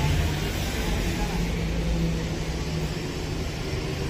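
City road traffic: cars driving past, a steady mix of engine and tyre noise with a low drone.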